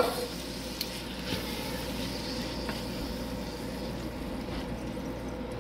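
Ground beef and diced tomatoes sizzling in a nonstick skillet and being stirred with a wooden spatula, over a steady low hum, with a sharp knock at the very start.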